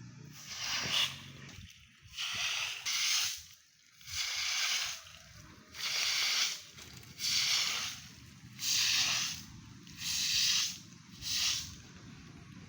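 Rhythmic rough scraping strokes, about eight in a row, each lasting under a second.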